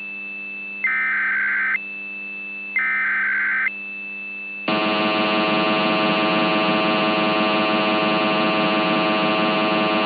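Synthesized emergency-alert tones from a mock EAS broadcast. A tone pattern switches about once a second, with a louder warbling tone twice. Then, about five seconds in, a louder buzzy steady alarm tone takes over and holds.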